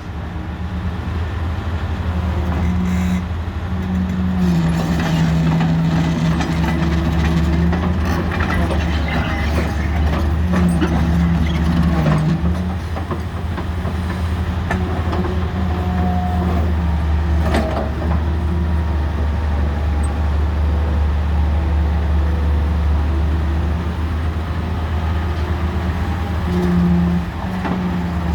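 Hitachi EX270 tracked excavator's diesel engine running steadily, its pitch stepping up and down several times as the load changes, with a few sharp metallic clanks.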